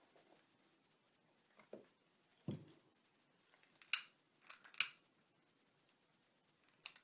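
Handling sounds from a candle adapter being set in place on a small Stirling engine: a light knock, a soft thump about two and a half seconds in, then a quick cluster of sharp clicks about four to five seconds in and one more click near the end.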